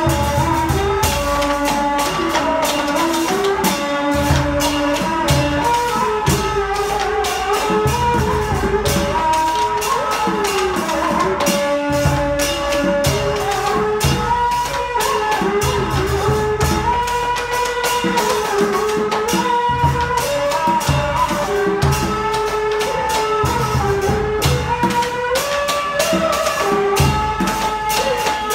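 Traditional ritual music: a melody of held notes that slide from pitch to pitch, played over quick, steady percussion.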